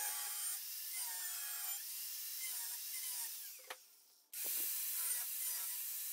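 An angle grinder grinding welded steel tubing with a steady, hissing whine, stripping mill scale and smoothing the welds. It breaks off briefly about four seconds in, then starts again.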